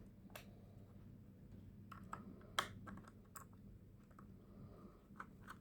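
A few faint, scattered clicks and taps from handling a laptop while a screw is put in to fix the hard-drive tray. The loudest click comes about two and a half seconds in, over a steady low hum.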